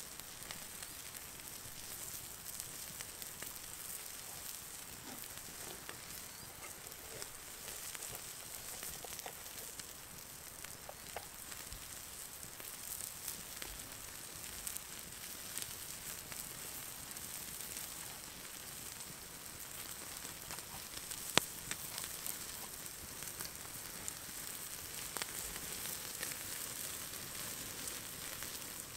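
Meat sizzling on a grill grate over an open wood campfire, with a steady hiss and the fire crackling in scattered small pops, and one sharp loud crack about two-thirds of the way through.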